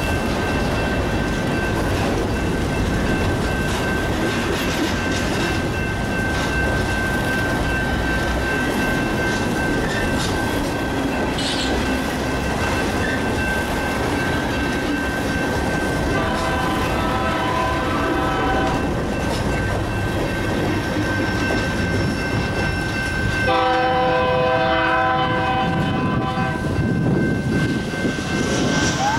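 Freight train of covered hopper cars rolling past at a grade crossing, wheels clattering over the rails, with the crossing bell ringing steadily. A train horn sounds two long blasts, about 16 seconds in and again about 23 seconds in, and a siren starts to rise at the very end.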